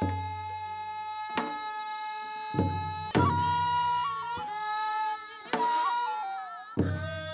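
Music playing: a held melody line over a low bass, with new phrases striking in several times, about a second and a half in, around three seconds, at five and a half seconds and near the end.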